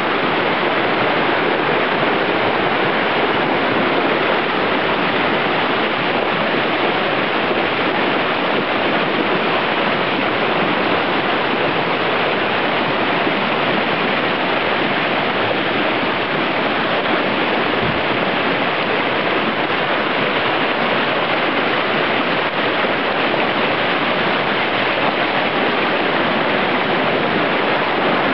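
Flood-swollen creek rushing and churning as whitewater over rocks, a loud, steady roar of water.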